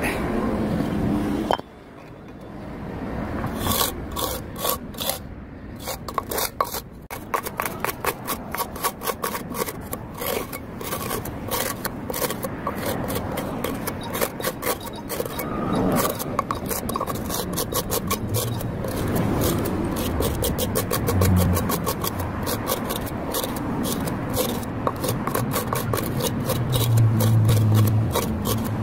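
Rapid, repeated rasping scrapes of grit and soil on a stone paving slab as dirt is dug out from under and around it to seat it flush with the sidewalk. A low hum swells near the end.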